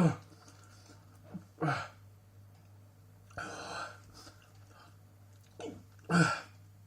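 A man hiccups sharply, then breathes out in a long hissing breath through the mouth, burning from very hot chili peppers.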